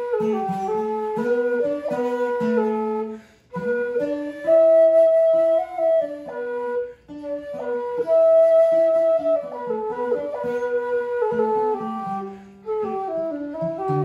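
An end-blown bamboo flute plays a slow melody in long held notes, over an acoustic guitar picking out the accompaniment. Both break off briefly between phrases, about three, seven and twelve and a half seconds in.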